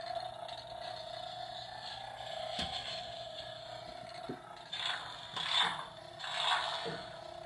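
Kylo Ren Ultimate FX toy lightsaber playing its electronic hum through its small built-in speaker, a steady single tone, with a click about two and a half seconds in and a few short harsher bursts of sound effect near the end.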